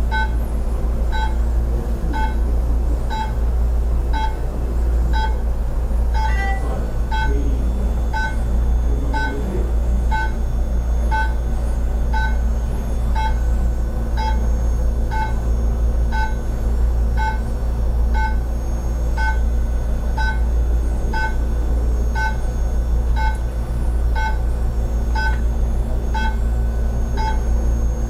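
Therapy laser unit beeping steadily about once a second while it runs, each beep a short two-pitched electronic tone, over a steady low hum.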